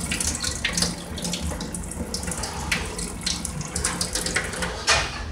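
Rinse water pouring from a tilted plastic bowl of chopped vegetables, strained through a hand held over the rim, and splashing into a stainless steel sink. One louder splash comes near the end.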